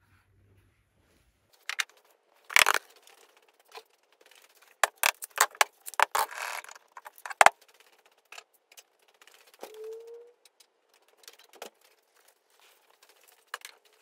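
Irregular clicks, knocks and rattles of handling, bunched from about two to eight seconds in and sparser after, with a brief hum near ten seconds.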